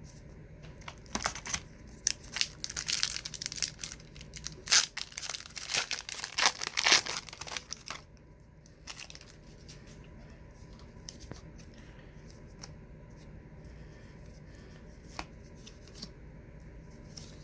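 Trading card wax pack wrapper crinkling and being torn open, a dense run of crackling for the first half, then quiet with a few faint clicks as the cards are handled.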